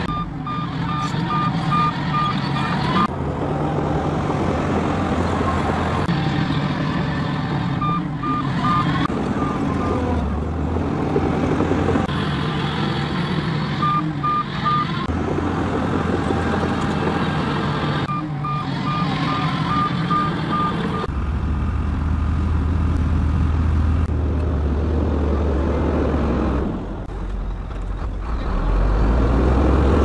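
Heavy diesel engine of a Shantui crawler bulldozer running under load while it pushes earth. A reversing alarm beeps in rapid, evenly spaced spells several times, and from about two-thirds of the way through a deeper engine sound grows heavier.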